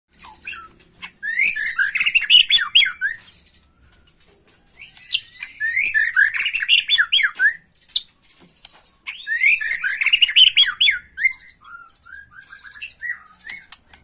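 White-rumped shama singing agitated, aggressive song: three loud bursts of rapid, varied whistled and chattering notes, with a few softer single notes in the gaps between them.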